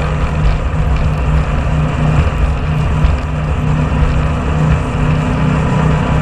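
Jet boat running at speed: a steady engine drone under the rush of wind and water.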